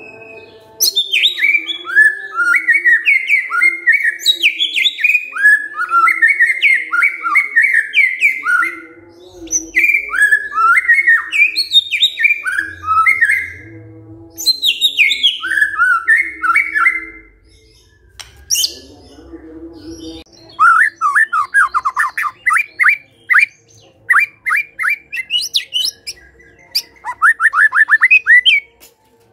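White-rumped shama singing loudly in several bursts of quick, sliding whistled notes with short pauses between them. Later in the song come fast runs of rising notes.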